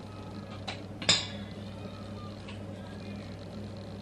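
A single sharp metallic clink about a second in, a spoon against the stainless steel mixing bowl while cookie dough is scooped out, over a steady low hum.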